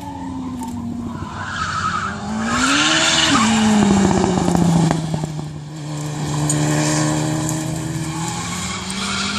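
Drift car sliding through a corner, its engine revving hard and its tyres squealing and skidding. The engine note climbs about two seconds in, drops sharply a little after three seconds and then holds lower, with the tyre squeal loudest in the middle.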